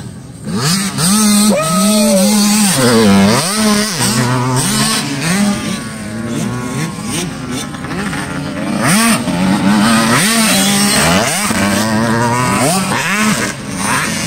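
Motocross dirt bikes running hard on the track. The engine pitch climbs and drops again and again as the riders open and chop the throttle and shift, with more than one bike heard at once at times.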